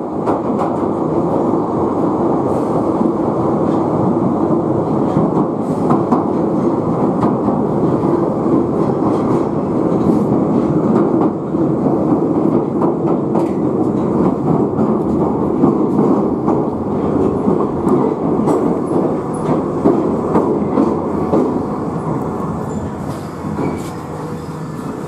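London Underground Piccadilly line train, a 1973 Stock, running at speed through a deep-level tube tunnel, heard from inside the carriage. A loud, steady rumble with rail clatter and a steady hum, easing off near the end as the train slows into the station.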